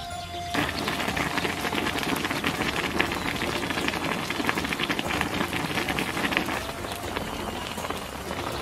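A large wok of beef feet boiling in broth, a dense steady bubbling and popping that starts suddenly about half a second in and grows quieter from about two-thirds of the way through.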